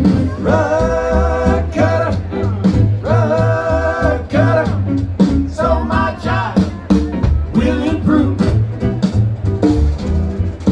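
A band playing with a singer, who holds long sung notes over a steady bass and drum beat.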